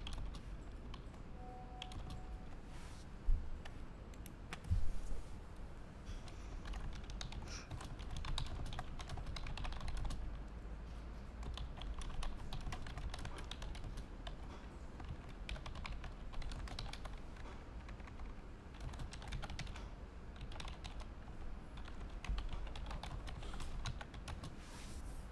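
Typing on a computer keyboard: keystrokes clicking in irregular runs as words are entered, with a couple of louder knocks about three and five seconds in.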